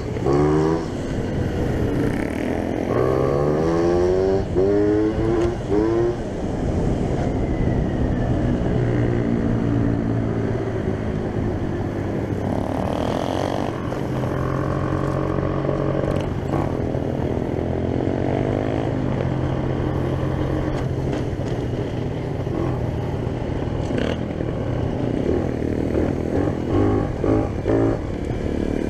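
Very loud tuned two-stroke scooter engine, a Peugeot Speedfight, under way. It revs up in several quick rising sweeps in the first few seconds, runs at a steady pitch for a stretch in the middle, and revs up and down in short bursts again near the end.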